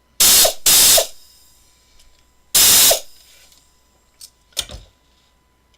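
Central Pneumatic 3/8-inch drive air ratchet run in short trigger pulls: two quick loud bursts of motor whir and air hiss at the start, a third about two and a half seconds in, and a shorter blip near the end.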